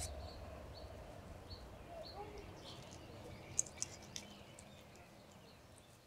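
Quiet outdoor ambience with faint bird chirps, and a few light clicks about three and a half seconds in as sandwich pieces are handled on the plate.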